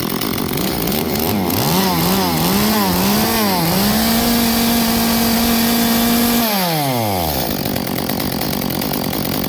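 Echo/Shindaiwa 355 top-handle two-stroke chainsaw running, revved up and down several times, then held at high revs for about two seconds before the throttle is let off and the revs fall away about seven seconds in. It is being run to show that the bar is not getting oil.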